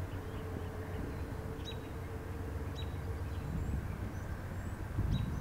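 Steady low rumble of a distant engine with a faint hum that fades after about three and a half seconds, and a few short, high bird chirps over it.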